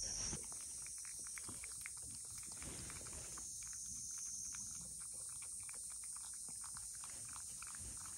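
Domestic cat licking a Churu lickable puree treat from a small ceramic bowl: a quick, uneven run of faint small clicks from its tongue.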